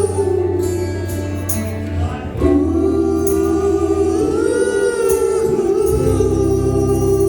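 Live acoustic band performance: voices singing long held notes over acoustic instruments with a steady low note underneath.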